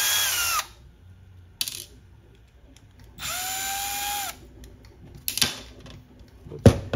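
Milwaukee M12 Fuel installation drill/driver running in two short bursts, about half a second and then about a second, each winding down in pitch as the trigger is released, as it backs the screws out of a small bit attachment. A few light clicks follow, and a sharp knock comes near the end.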